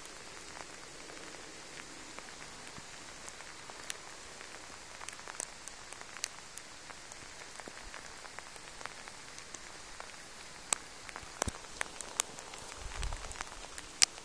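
Light rain falling: a steady hiss with scattered sharp drop ticks, and a brief low rumble near the end.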